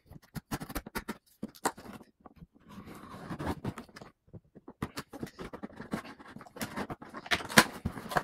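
Knife cutting the packing tape on a cardboard shipping box, with the blade scratching and scraping on the cardboard and scattered clicks and taps from hands handling the box. A longer scrape comes about three seconds in, then a short pause, then busier handling near the end.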